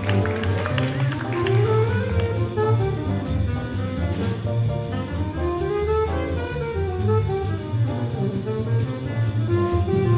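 Large jazz ensemble of saxophones, clarinets, flute, trumpet, tuba and strings playing a cool-jazz big-band arrangement over a walking double bass line and evenly spaced drum-kit cymbal strokes.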